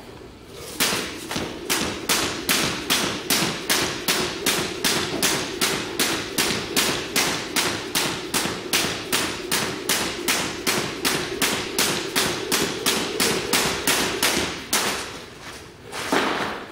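Jump rope skipping on a wooden gym floor: the rope slaps the floor and the feet land in an even rhythm of about two and a half strikes a second, stopping about fifteen seconds in. A single thump follows near the end.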